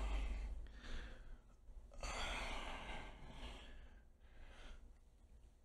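A man breathing out in a few breathy sighs while stretching his neck and shoulders to relax, the longest about two seconds in, growing fainter toward the end.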